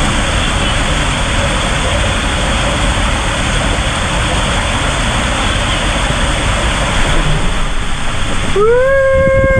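Steady rush of water and wind noise while riding down a tube water slide. Near the end a person's voice lets out a held, rising-then-steady yell lasting about a second.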